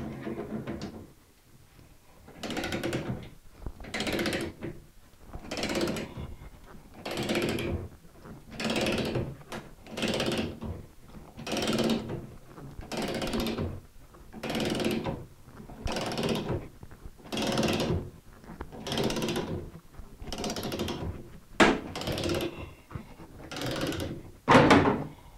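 Greenlee Slug-Buster knockout punch being cranked through a steel electrical panel wall with a wrench on its drive bolt: a strained, grinding creak with each wrench stroke, about one stroke every second and a half. Near the end come two sharp, loud cracks.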